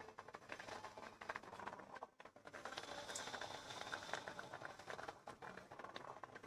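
Masala fish-curry gravy bubbling in the pan on the stove, a faint dense crackle of small pops. It dips briefly about two seconds in.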